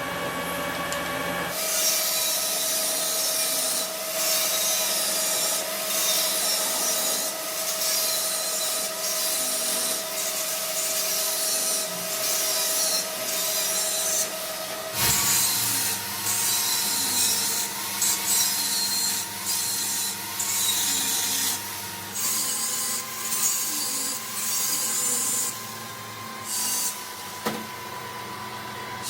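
Steady rasping and rubbing of a tool working metal, broken by short pauses, over a steady machine hum that shifts pitch about halfway through and again later.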